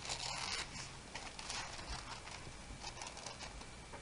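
Tissue paper rustling and crinkling as it is handled and wrapped around a small glass jar, loudest in the first second.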